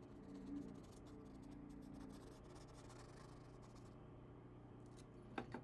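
Faint scratching of a paintbrush working paint on canvas, over a low steady room hum, with a couple of short clicks near the end.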